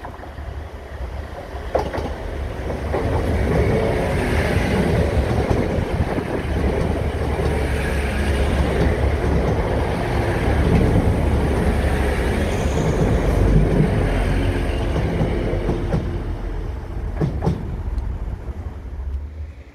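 Class 185 diesel multiple unit passing close by: engine and wheels on the rails, building up about two seconds in and dying away near the end, with a sharp click from the wheels as it begins and another as it ends.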